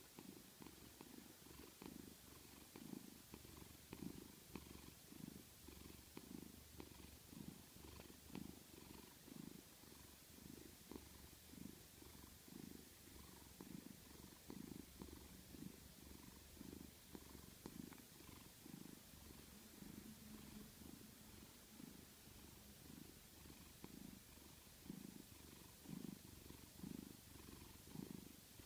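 Quiet, steady snoring: a soft low rasp on each breath, repeating about twice a second.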